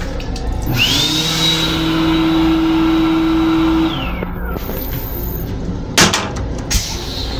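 Touchless hand dryer in a train restroom running for about three seconds: the motor whines up to a high steady pitch over a rush of air, then winds down. A sharp knock comes about two seconds later.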